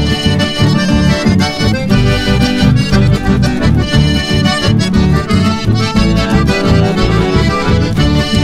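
Instrumental chamamé passage led by a button accordion, over a steady, pulsing bass beat.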